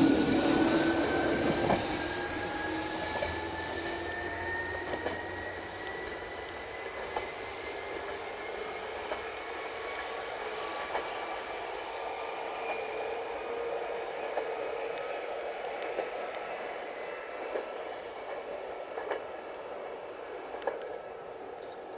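Nagano Electric Railway 8500 series electric train running, its motor whine slowly rising in pitch as it gathers speed. Wheels click over rail joints every second or two, and the sound gradually gets quieter.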